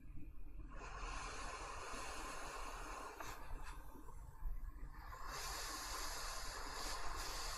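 Flux sizzling faintly as a hot soldering tip is dragged across a circuit board's solder pads to clean them. It comes in two stretches with a short pause in the middle.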